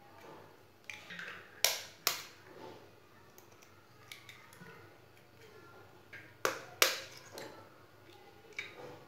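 Eggs being cracked with a steel spoon: sharp taps on the shells, two quick taps about a second and a half in and two more past the six-second mark, with a few fainter clicks between.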